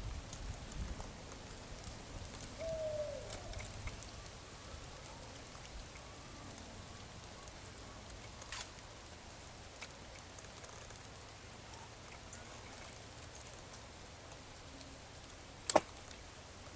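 Faint, steady outdoor background hush with a short falling call about three seconds in and a few small ticks; one sharp click near the end is the loudest sound.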